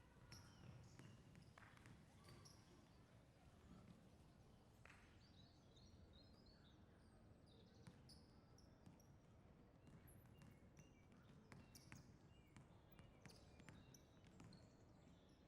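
Near silence: faint background ambience with a low murmur, scattered faint high chirps and small clicks.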